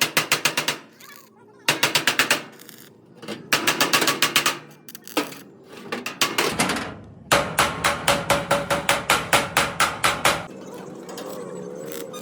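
Rapid hammer blows on metal, about four or five a second, in several bursts with short pauses between them; the strikes give way to quieter background near the end.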